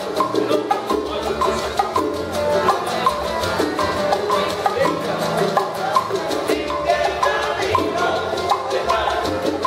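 A small Cuban band playing live: acoustic guitar and a smaller guitar strumming over an upright double bass, with shaken hand percussion keeping a steady fast pulse.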